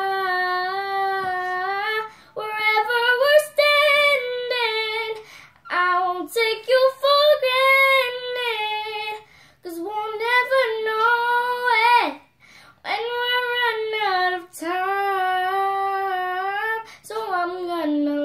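A girl singing unaccompanied, with no instruments, in long held notes that slide and waver in pitch. The phrases break off briefly every few seconds.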